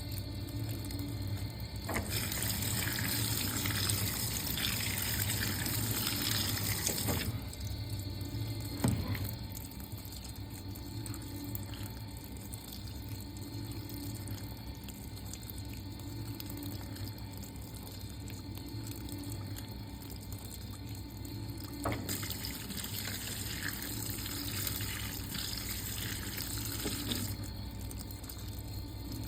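Fisher & Paykel MW511 top-loading washing machine filling: water rushes into the tub in two bursts of about five seconds each, with a quieter trickle and a steady low hum between them.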